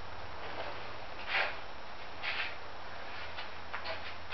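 Quiet room tone: a steady low hum under faint hiss, with a few faint short rustling noises, the clearest about a second and a half in.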